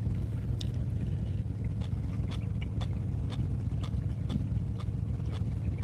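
Fishing boat's engine running steadily at a low rumble, with scattered light clicks and taps from tackle and gear on deck.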